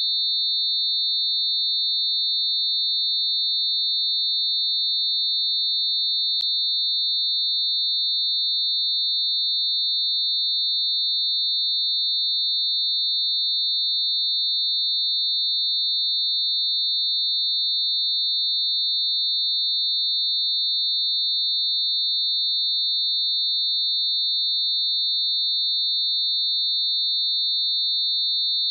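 Synthesised steady high-pitched tone: several closely spaced sine tones mixed together around 4,000 Hz, held unchanging, with one faint click about six seconds in.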